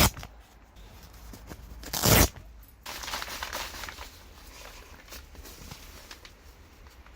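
Rustling and crunching movement sounds: two short, loud scraping bursts, at the start and about two seconds in, then continuous lighter rustling and crunching.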